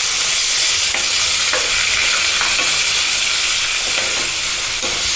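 Chopped tomatoes sizzling steadily in hot oil in a non-stick pan, freshly added to a tempering of curry leaves and asafoetida. A plastic ladle stirs them, knocking faintly against the pan a few times.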